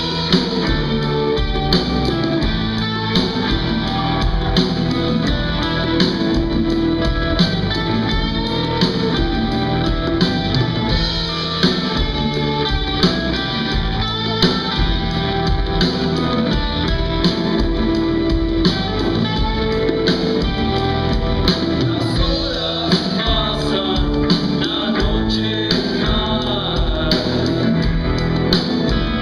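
Rock band playing a slow blues live: electric guitar and drums, with a singer's vocals.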